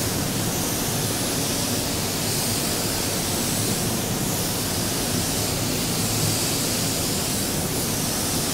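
Compressed-air paint spray gun hissing steadily as it lays a coat of clear onto a car fender. The hiss rises and falls slightly as the gun sweeps back and forth across the panel.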